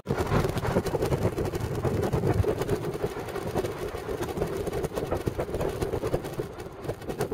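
Steady engine and tyre noise of a car moving at road speed, heard from inside the car as an even, low rumble.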